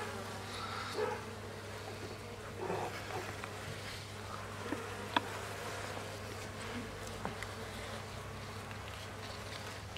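Honeybees buzzing steadily around comb frames lifted from an opened, overwintered Mini Plus nuc: a calm colony with its queen on the comb. A few faint clicks come from the frames being handled, the sharpest about five seconds in.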